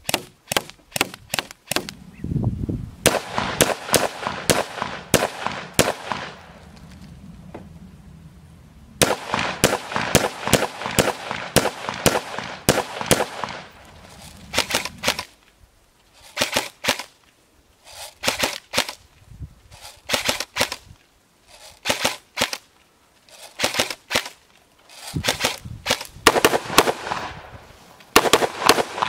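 Rifle shots fired in quick strings. Long rapid runs of shots give way to short groups of two or three shots about every second and a half, then another rapid string near the end.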